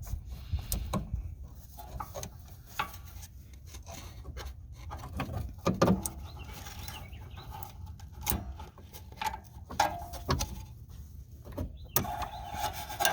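Scattered clicks and knocks of hands and a quick-disconnect tool working at the fuel filter's plastic and metal line fittings under the vehicle, with a louder knock about six seconds in, over a low rumble.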